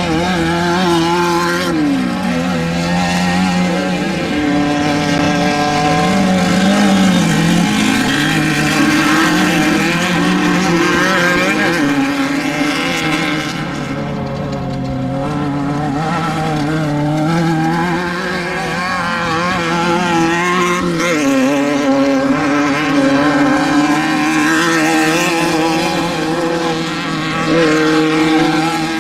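Engines of off-road desert race vehicles running hard at speed, several at once, their pitch dropping as a vehicle passes a couple of seconds in and again about two-thirds of the way through.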